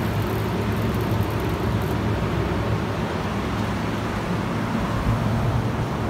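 Walk-in cool room's Buffalo Trident evaporator fans running: a steady rush of air with a constant low hum.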